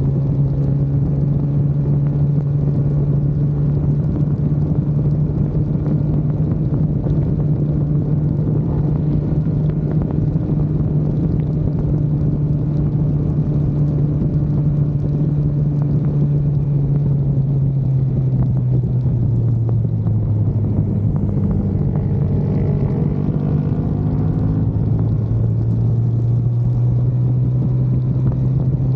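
Engine of a vehicle lapping a race track, heard on board over road and rain rumble. The engine holds a steady pitch for most of the stretch, drops lower about two-thirds of the way through, and climbs back up near the end as the driver lifts off and gets back on the throttle.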